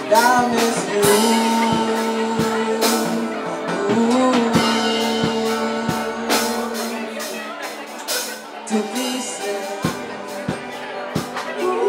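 Live band music: drum kit hits and cymbals under long held melodic notes that bend in pitch, with no clear words.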